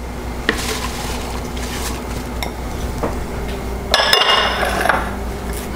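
Fresh cilantro tipped from a bowl into a plastic food processor bowl: light rustling and a few soft knocks, then a clink with a short ring about four seconds in. A steady low hum runs underneath.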